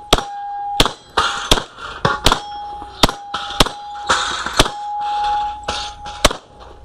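About ten Glock pistol shots fired at an uneven pace through a USPSA stage, with a ringing, metallic tone hanging between shots, as of steel targets being hit.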